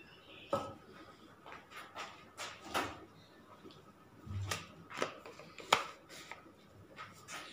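Light, scattered clicks and knocks of kitchen items being handled, about a dozen spread over several seconds.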